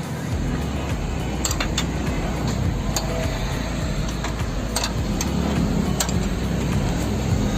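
Scattered sharp metal knocks and clinks from tools working a bent front control arm loose from the suspension of a Maruti Alto K10, over a steady low, engine-like drone.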